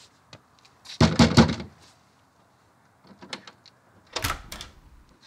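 Knocking on a house's front door, a quick cluster of knocks about a second in; a few faint clicks follow, and near the end the door is opened.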